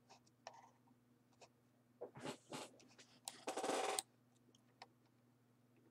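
Computer mouse clicking a few times and sliding over the desk in two short scrapes, the second louder one about half a second long and cutting off suddenly.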